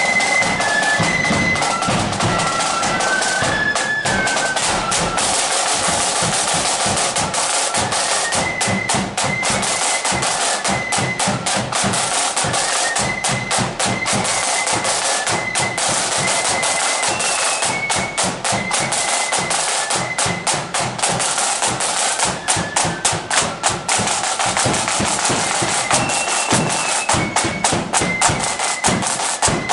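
Marching flute band playing: flutes carry a high stepped melody over rapid, continuous snare drumming.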